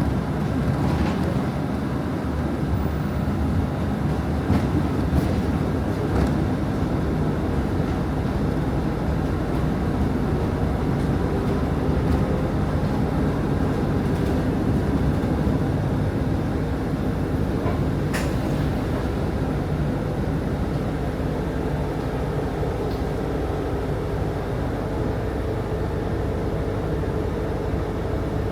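Interior sound of a moving city bus: a steady low engine and road rumble with faint rattles of the cabin.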